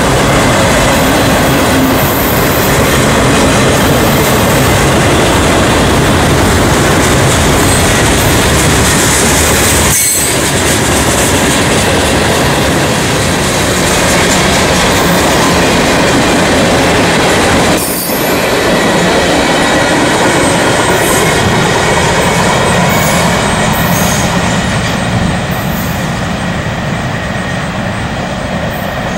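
Freight train of autorack and tank cars rolling past close by: a loud, steady rumble and rattle of steel wheels on rail, with some wheel squeal. It eases off somewhat toward the end as the last cars go by.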